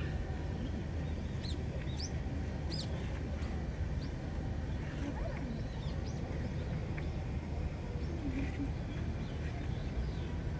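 A few short, high bird chirps scattered over a steady low outdoor rumble.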